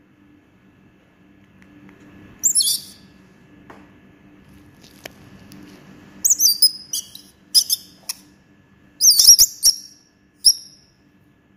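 Infant banded leaf monkey giving high-pitched squeaky calls with quick up-and-down pitch glides: one call about two and a half seconds in, then a run of short chirps from about six seconds in, the last one near the end. A faint steady low hum lies underneath.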